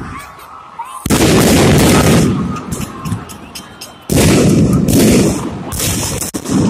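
Fireworks going off: two loud bangs, about a second in and about four seconds in, each ringing on for a second or more, with quick sharp crackles throughout.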